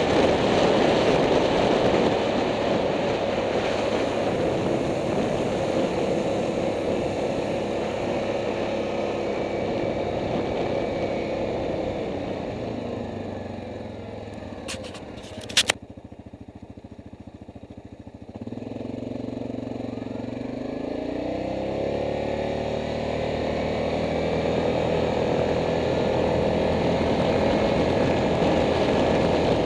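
Yamaha Grizzly ATV's engine running under way, easing off about halfway through to a quieter low run with a couple of sharp clicks, then picking up again with its pitch climbing as it speeds back up.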